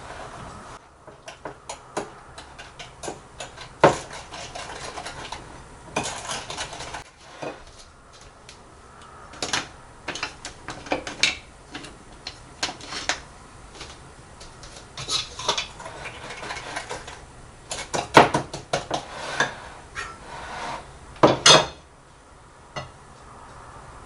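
Dishes and cutlery clinking and clattering as they are handled: an irregular run of light clinks and knocks, with a few louder ones near the start and in the second half.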